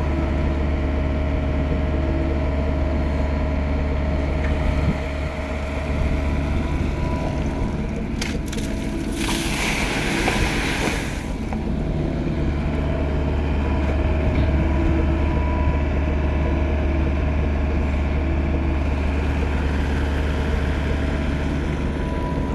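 Mini excavator engine running steadily, sounding healthy after being repaired. About nine seconds in, a rushing hiss lasts about two seconds.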